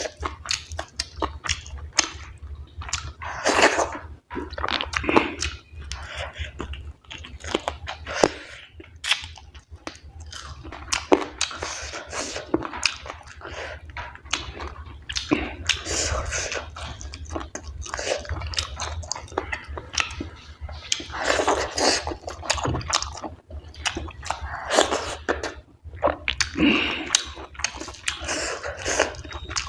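Close-miked chewing and mouth sounds of a person eating dhido with chicken curry: irregular wet smacks, clicks and bites, over a steady low hum.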